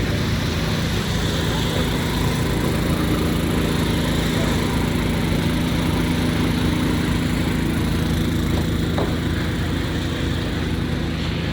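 An engine running steadily, a constant low hum over a hiss of street noise.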